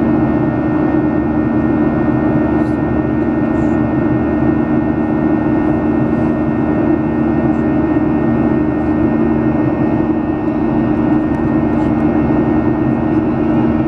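Steady roar of a twin-jet airliner's engines and airflow heard inside the passenger cabin during the climb after takeoff, with a constant low two-note hum.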